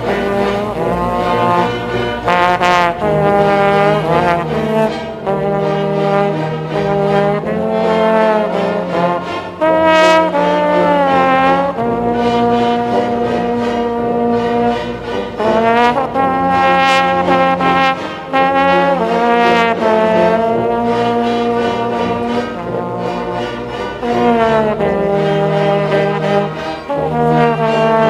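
Trombone solo playing a melody in long held notes that move up and down every second or two, with an orchestra accompanying underneath.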